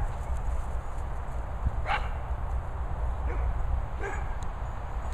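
A dog giving a few short, high barks or yips, one clear one about two seconds in and fainter ones around three and four seconds, over a steady low rumble.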